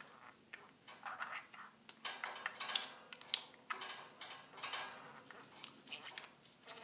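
Budgerigar that has just begun to talk, murmuring and chattering softly as it tries to say a word it has learned, in short broken chirps with a few sharp clicks.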